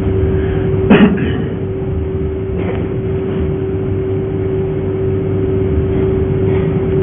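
Steady hum at one pitch over a low rumble, with one loud thump about a second in.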